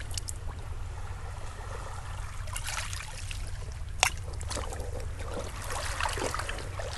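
Small lake waves lapping and trickling over a pebble beach in shallow water, with a steady low rumble underneath and one sharp click about four seconds in.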